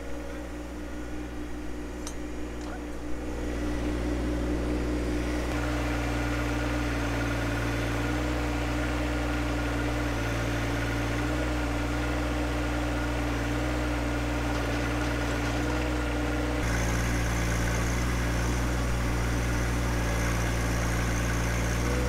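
John Deere 1025R compact tractor's three-cylinder diesel engine running steadily while powering its 260 backhoe. The engine note grows louder about three seconds in, then changes abruptly twice.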